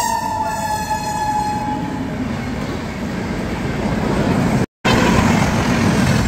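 Train horn sounding over the rumble of a passing train, fading out about two seconds in. The rumble of Indian Railways passenger coaches rolling past carries on, broken by a short dropout near the middle.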